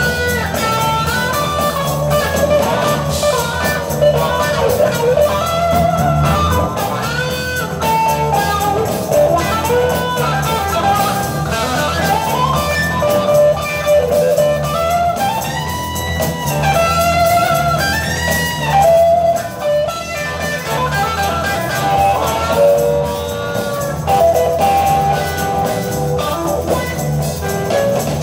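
Live band playing a blues instrumental: a guitar lead with bent, sustained notes over bass and drums, with a tambourine shaken along.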